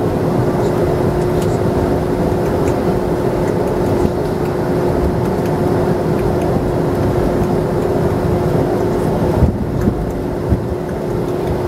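Cabin noise of a Boeing 737-300 taxiing: the steady rumble of its CFM56 engines with a constant whine running through it. Near the end there are two short thumps.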